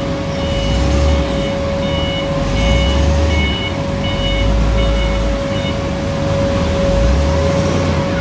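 Propane forklift reversing: its backup alarm beeps about twice a second, stopping a little past halfway, over the low engine rumble. A steady hum runs underneath throughout.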